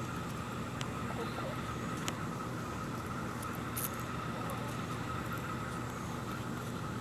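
Steady outdoor background: a low rumble under a steady, thin high-pitched drone, with a few faint ticks.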